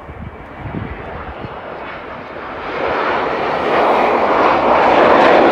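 Allegiant McDonnell Douglas MD-80-series jet's twin rear-mounted Pratt & Whitney JT8D turbofans running at takeoff power on the takeoff roll. The engine noise grows steadily louder as the jet nears and rotates, and is loudest from a little past halfway on.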